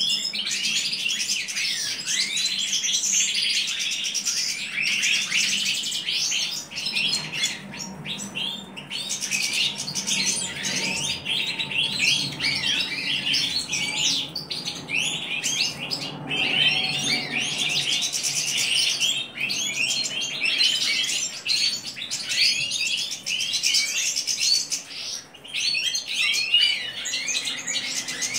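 European goldfinch singing: a continuous, fast stream of twittering chirps and trills that runs without a break.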